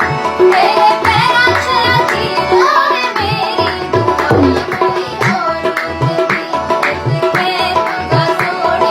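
A woman singing an Indian classical-style melody over tabla, with a steady sustained drone beneath. The voice fades out about halfway through, leaving the tabla playing an even rhythm.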